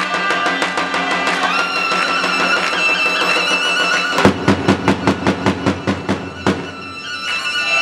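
Albanian folk dance music: a large double-headed drum (lodra) beaten under a held, high melody line. About halfway through the drum plays a fast run of loud strokes, about five a second, then the music dips briefly and picks up again near the end.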